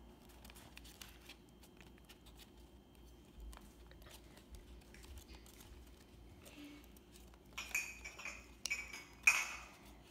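Glue stick rubbed over paper tabs, a faint scraping with small ticks. Near the end the paper is handled and folded, a louder rustling and crinkling with a sharp knock about nine seconds in.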